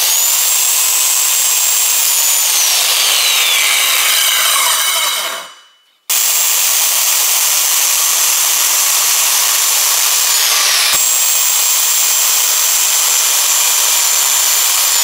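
SKIL circular saw crosscutting hardwood pallet boards, its motor running with a steady high whine. About three seconds in the pitch glides down as the blade winds down and stops; the saw starts again suddenly about six seconds in and runs steadily through another cut.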